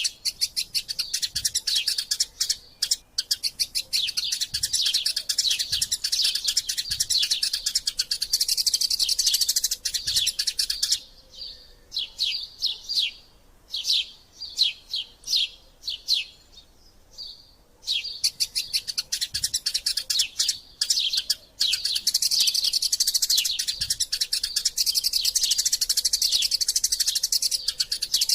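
Eurasian tree sparrows chattering in their fighting calls: a dense stream of very rapid, high chirps, thinning about eleven seconds in to about ten separate chirps for some seven seconds before the dense chatter starts again.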